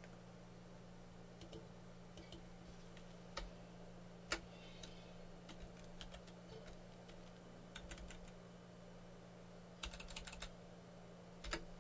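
Computer keyboard keys tapped sporadically, single keystrokes and short runs, as a bone name is typed. A faint steady low hum lies underneath.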